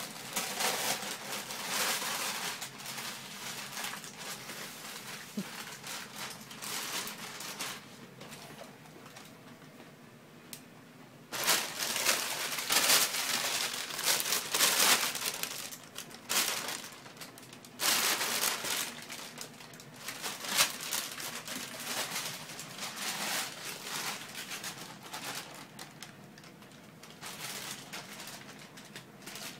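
Thin plastic carrier bag rustling and crinkling as a kitten scrambles about inside it and a hand moves the bag, in uneven spells that are loudest around the middle.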